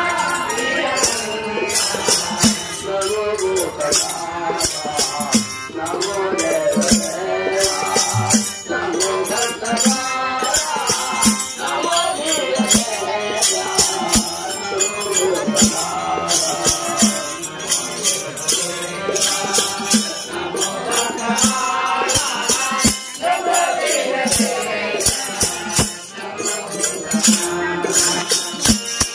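A bhajan group singing a devotional song to harmonium, over a steady jingling beat from hand-held clappers fitted with small metal cymbals.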